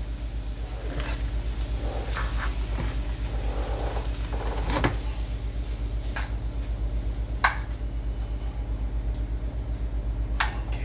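A metal spatula clinking and scraping against a skillet and cookware now and then, over a steady low hum.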